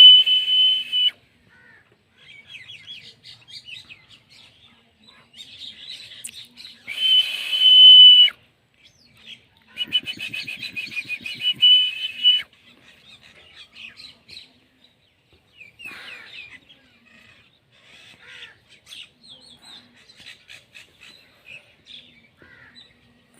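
Parrot calling: three loud, shrill calls (at the start, about seven seconds in, and a longer one about ten seconds in), with many softer short chirps in between.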